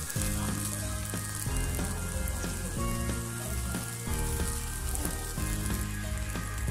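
Aloo paratha frying in soybean oil in a pan, sizzling steadily as a spatula presses it.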